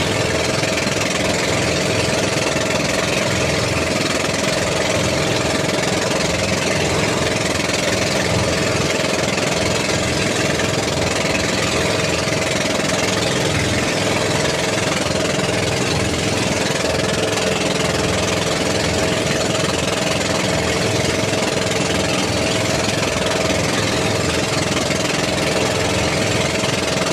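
Baler running steadily, with an even engine note and a fast low pulsing underneath.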